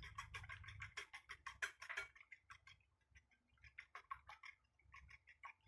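Faint, rapid light clicking of a utensil against a ceramic plate as raw eggs are beaten on it. The clicks thin out about halfway, then pick up again.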